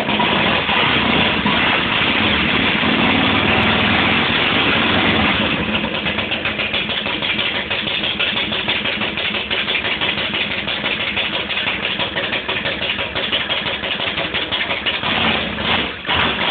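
A custom chopper motorcycle's engine running in a garage. It runs loudest for about the first five seconds, then settles to a slightly lower, steady running.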